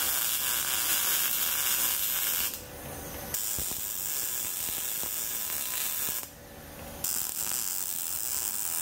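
MIG welder arc running on steel, joining a 1/8-by-1-inch flat strap to 1x2 steel: a steady hiss in three runs of about three seconds each, with two brief pauses between.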